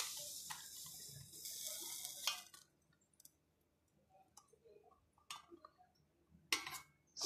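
A soft hiss that fades away over the first two seconds or so, then a few faint, scattered clicks and clinks of a spoon against a steel pot and dish as the cooked instant noodles are served out.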